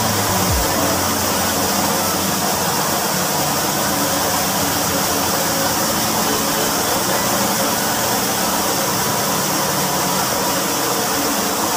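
Steady hiss of pressurised water spraying in a fine jet from a small PVC pipe elbow inside a water cistern tank.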